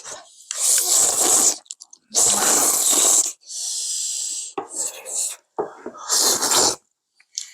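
Eating sounds close to the microphone: several loud, noisy bursts of slurping and chewing, with one longer steady slurp near the middle.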